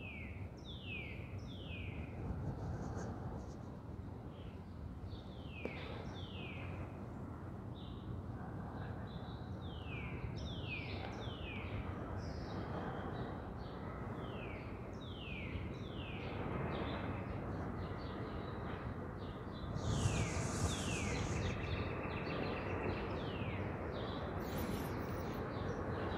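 A songbird calling repeatedly, each note a short whistle sliding down in pitch, given in quick runs of three or four, over steady outdoor background noise. A brief louder rush of noise comes near the end.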